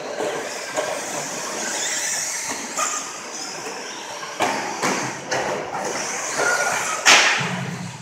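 Radio-controlled stadium trucks racing on an indoor dirt track: a continuous high-pitched hiss of motors and tyres, with several sharp knocks in the second half, the loudest near the end.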